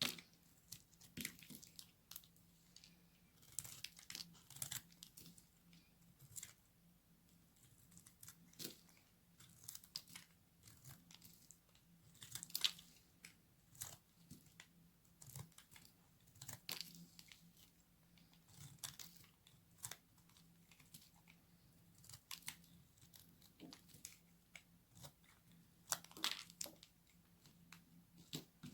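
Blade cutting through very dry soap: irregular crisp crunches and cracks, about one a second, some louder than others, with a faint steady hum underneath.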